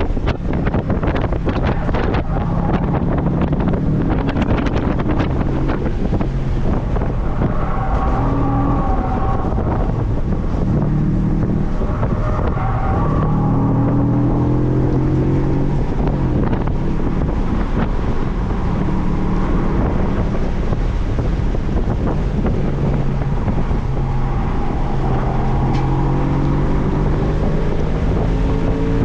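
Heavy wind buffeting the microphone over a 2007 Audi B7 RS4's 4.2-litre V8 under hard acceleration, its note climbing repeatedly and dropping away at each shift or lift.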